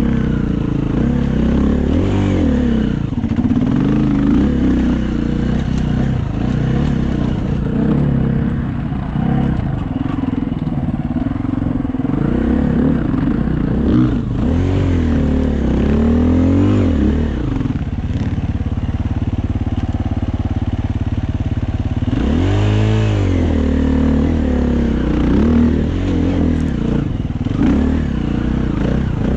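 Dirt bike engine being ridden, its pitch rising and falling again and again as the throttle is opened and closed.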